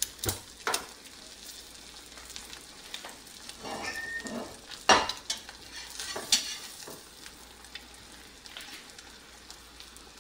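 Parrot eggs frying sunny side up in a skillet, a steady sizzle. Several sharp clicks and knocks break through, the loudest about five seconds in.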